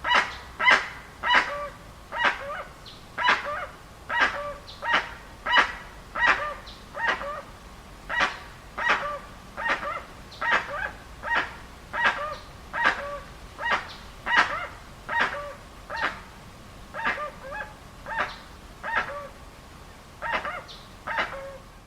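Dusky-legged guan (Penelope obscura) calling: a long series of short, harsh calls, about one every two-thirds of a second, some ending in a lower note.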